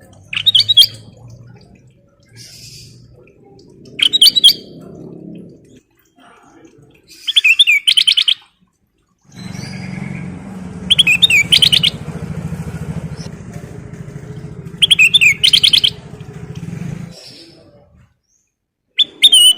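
A kutilang emas bulbul singing short, rapid phrases of bright notes, repeated about every three and a half seconds. A low rumble runs underneath through the middle stretch.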